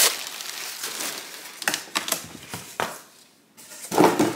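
Brown kraft packing paper crinkling and rustling as it is pulled off a bowl, with several sharp crackles, then a louder rustle near the end.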